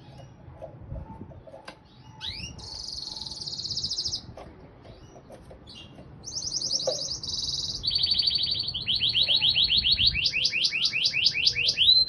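Domestic canary singing: fast rolling trills of high notes, phrase after phrase, each held for about a second, then a run of quick repeated notes growing louder toward the end.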